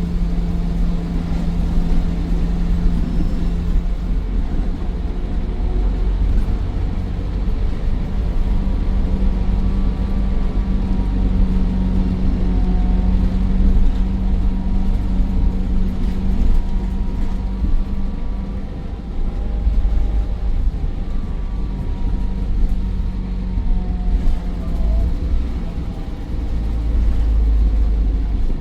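Optare Versa bus's Mercedes-Benz OM934 5.1-litre four-cylinder diesel and Allison 2100 automatic gearbox running under way, a low rumble with the engine note shifting in pitch as the bus drives. A faint whine drifts up and down over it, the boost/turbo whine this engine is known for, and the low rumble swells near the end.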